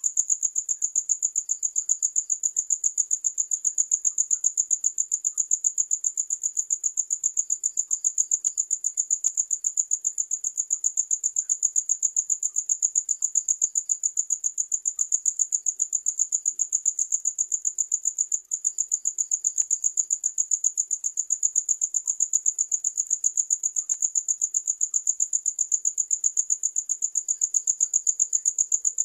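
Crickets chirping: one loud, high-pitched cricket keeps up rapid, evenly spaced chirps without a break, and a fainter, lower cricket joins in briefly every few seconds.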